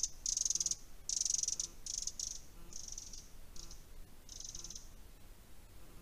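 An insect chirping in short, high, buzzy bursts about once a second, growing fainter and stopping about five seconds in.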